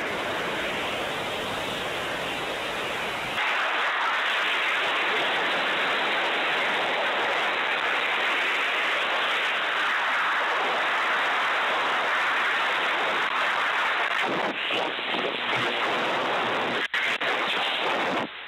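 Steady rush of wind from high-speed airflow during the dive. About three and a half seconds in it turns brighter and hissier, and it drops out briefly near the end.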